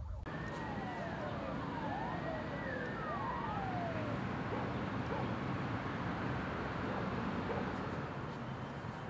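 Several emergency-vehicle sirens wailing at once, their pitches rising and falling and crossing each other, over a steady background noise; the sirens die away about four seconds in, leaving the noise.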